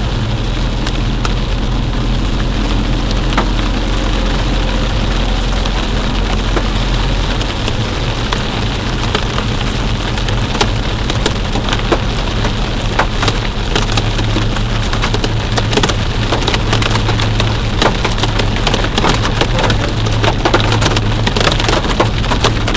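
Heavy rain and hailstones pelting a moving vehicle: a steady downpour hiss over a low road drone, with sharp hail impacts growing more frequent through the second half.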